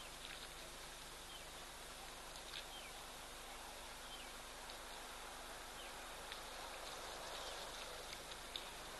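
Faint outdoor ambience: a steady hiss with scattered short, high chirps of small birds.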